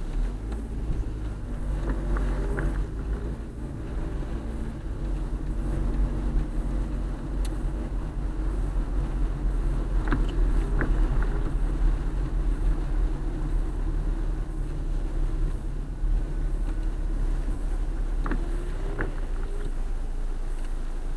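Steady low rumble of a car driving on a wet road, heard from inside the cabin, with a few short squeaks in pairs.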